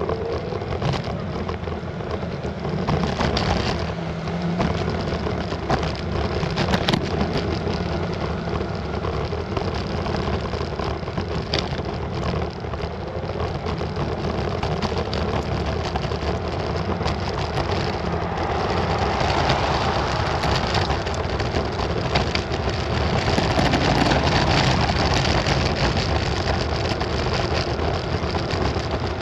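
Ride noise from an Unagi electric scooter moving along a street: a steady rushing of wind and tyres with a low rumble, swelling a little about twenty seconds in.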